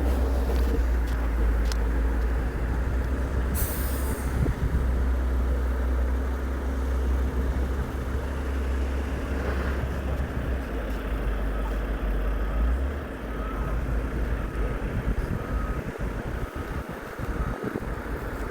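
A heavy truck's engine running with a steady low rumble. An air brake hisses briefly about four seconds in, and faint backing-up beeps sound near the end.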